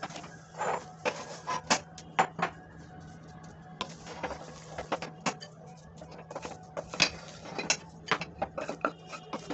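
Wooden spatula scraping and knocking against a metal kadai while scooping up a thick mashed-potato mixture: irregular scrapes and taps, with a steady low hum underneath.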